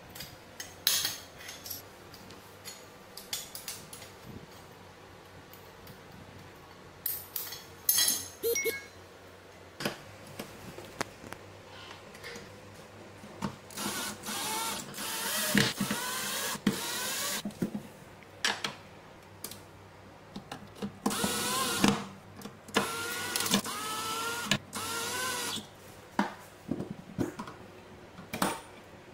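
Cordless drill driving screws into a cabinet wall to fix a bracket, in several short runs of a second or two, its motor whine wavering in pitch. Before that, clinks and knocks of metal tubes and small hardware being handled and fitted together.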